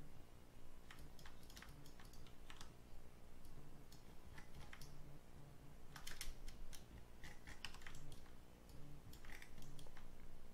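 Computer keyboard keystrokes and mouse clicks, irregular and in small bunches, from working in 3D modelling software.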